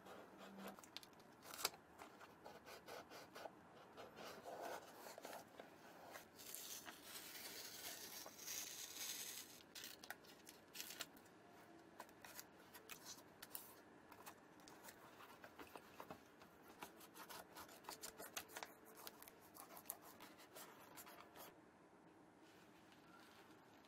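Faint close-up handling sounds: fingers rubbing, scratching and pressing paper masking tape onto a white leather sneaker, with scattered light clicks and a longer rustling stretch about a third of the way in.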